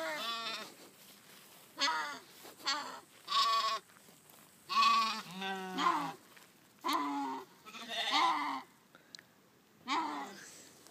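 Sheep bleating over and over, about nine separate calls of under a second each, several with a wavering, quavering pitch.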